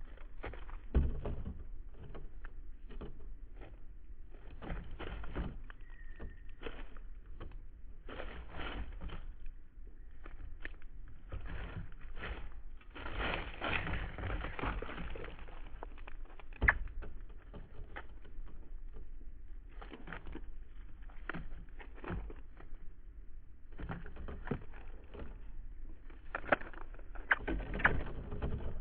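Birds feeding at a feeder close to the microphone: irregular taps, scratches and rustles of beaks and feet on the feeder and seed. There are a few sharper knocks, the loudest about a second in and near seventeen seconds, and a short faint chirp about six seconds in.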